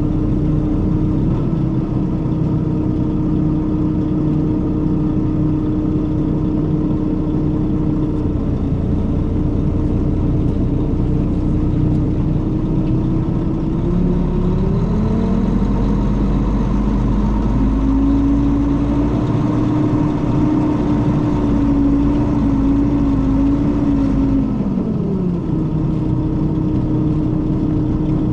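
Mercedes-Benz O500RS coach's diesel engine running steady, then revving up about halfway through. It holds the higher note for several seconds and drops back near the end. The owner likens this engine note to the older O400RSE's.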